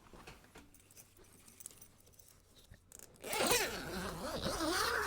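A zip on a padded bed's fabric cover being run open: a rasp whose pitch wavers with the pull, starting about three seconds in after a few faint handling sounds.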